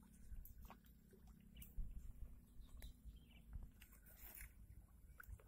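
Near silence: a faint low rumble with scattered faint clicks and ticks.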